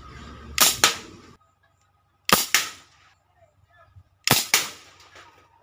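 Homemade PVC toy air gun styled on the FX Crown firing three shots about two seconds apart. Each shot is a pair of sharp cracks in quick succession.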